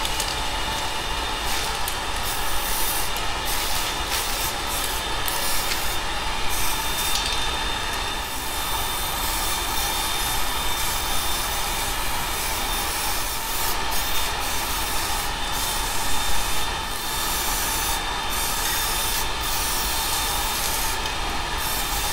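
Aerosol spray-paint can hissing in long passes, with several brief breaks between them, as yellow paint is sprayed onto plastic panels.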